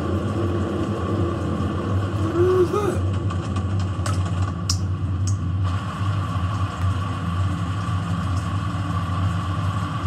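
Steady low droning hum from an animated short's soundtrack, with a faint high tone held over it. A brief wavering vocal sound comes about two and a half seconds in, and a couple of sharp clicks follow around five seconds.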